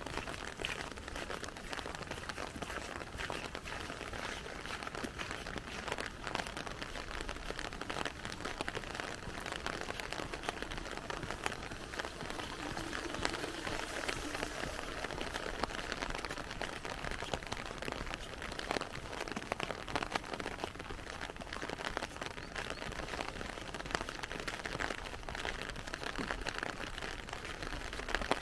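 Steady rain pattering on an umbrella overhead: a constant hiss dotted with many close, separate drop ticks.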